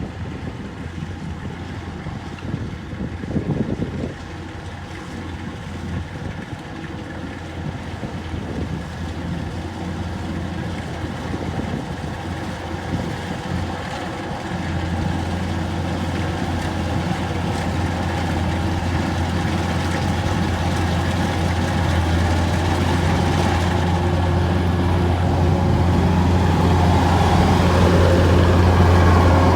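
Engine of a Kubota rice harvester running steadily while cutting, getting louder, with a marked step up in its low hum about halfway through.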